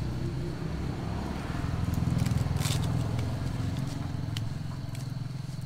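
A small engine, likely a motorbike on the road, running with a low rapid putter that swells a little about two seconds in and eases off toward the end. Over it come a few light crackles and snaps of leaves being plucked from their stems.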